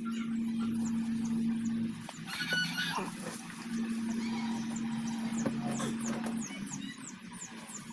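Power-steering pump whining in a steady hum, in two spells of a couple of seconds each, with a short scraping noise between them. Birds chirp throughout.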